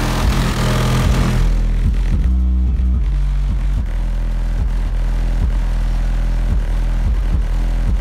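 Bass-heavy music played loud through two Skar ZVX 12-inch subwoofers wired at 1 ohm in a ported trunk box. Deep, sustained bass notes dominate, changing pitch every so often.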